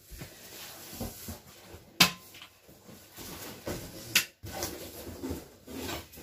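Wooden flat-pack table panels being handled during assembly: scuffing and light knocks, with two sharp wooden knocks about two seconds in and about four seconds in, the first the loudest.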